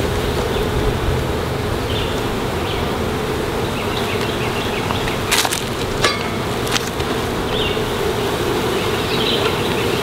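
Honeybees buzzing steadily around an open hive, a dense continuous hum. A few sharp knocks and scrapes come about halfway through.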